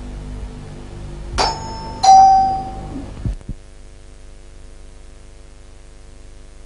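Two-tone electric doorbell ringing ding-dong: a higher ding about one and a half seconds in, then a lower, louder dong that rings out briefly. A couple of soft thumps follow, then a faint steady hum.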